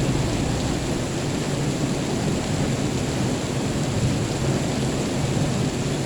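Steady heavy rain with a continuous low rumble of thunder underneath, no sharp claps.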